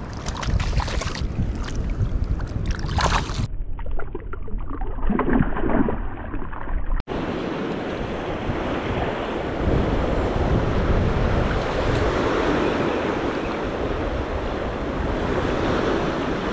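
Small surf washing up a sandy beach, with wind gusting on the microphone in the first few seconds. After a brief dropout about seven seconds in, the waves settle into a steady rush.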